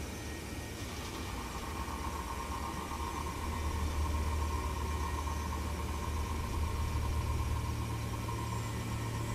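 A steady low hum, with a fainter, even higher tone joining about a second in.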